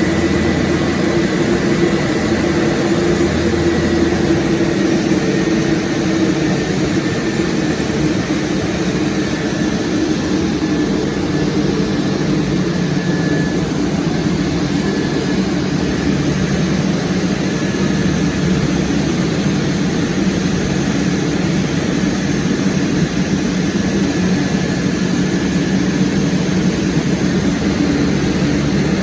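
Steady engine and airflow noise of a passenger aircraft in flight, heard from inside the cabin, with a faint high whine over the low drone.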